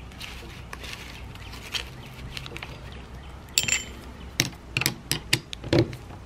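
Soft handling of a chainsaw centrifugal clutch, then, from about halfway, a quick run of sharp metal clicks as a screwdriver pries between the steel clutch shoes and their coiled garter spring.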